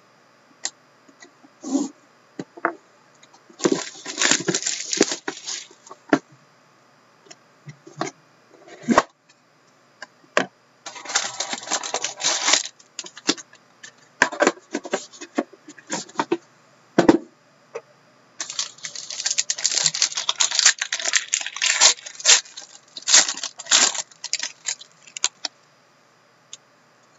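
Plastic shrink wrap on a sealed trading-card box being slit with a knife and torn off, crinkling and crackling in three long bursts, with short clicks and taps of handling between.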